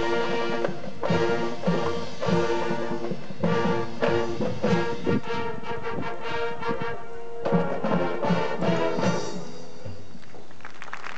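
High school marching band playing a brass-heavy passage over a steady drum beat. The music breaks off about nine and a half seconds in, and applause begins near the end.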